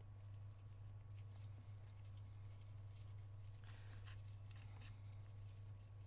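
Faint scratching and two small sharp ticks of a metal tool working under an iPhone 6S battery, trying to wind out a torn adhesive pull-strip, over a steady low electrical hum.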